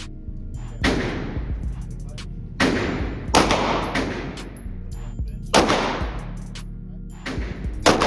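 Gunshots fired one at a time at a shooting range, about six in all at irregular intervals, each with a short decaying echo. Background music runs underneath.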